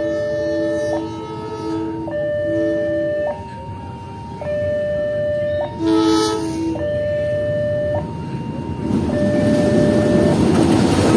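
Level-crossing warning alarm sounding, a high and a low tone alternating about once a second. A short train horn blast comes about six seconds in, and from about nine seconds the rumble of the approaching train grows louder.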